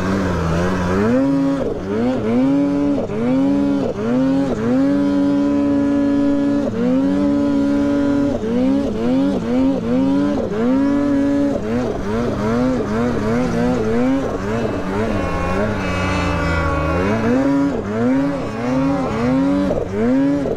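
Snowmobile engine being throttled through deep powder: the revs swoop up and drop back again and again, with a couple of stretches held at steady high revs.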